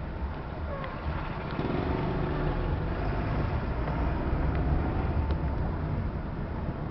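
Engine and road noise of a moving vehicle, heard from inside the cabin: a steady low rumble that gets louder about a second and a half in.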